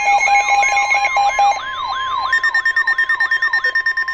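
Several electronic emergency-alert tones layered together: a falling siren-like sweep repeating about three times a second, a steady single tone that comes in about a second in, and rapid beeping that starts about halfway through.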